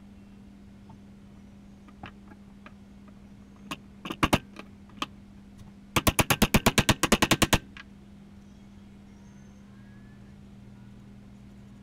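A few scattered sharp knocks, then a fast run of about fifteen sharp knocks in under two seconds, over a steady low hum.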